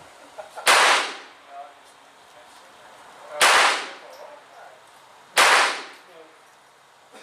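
Three handgun shots about two to three seconds apart, each a sharp crack trailing off over about half a second: a string of heavy .38 special handloads with 200-grain lead bullets.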